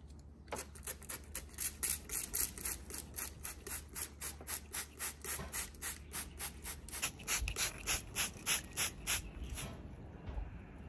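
Trigger spray bottle misting water over two owls for a bath: a rapid run of short squirts, about four a second, stopping shortly before the end.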